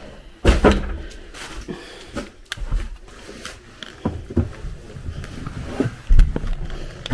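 Irregular knocks, thumps and rattles of old wooden doors being handled, with two heavier thumps, one about half a second in and one near the end.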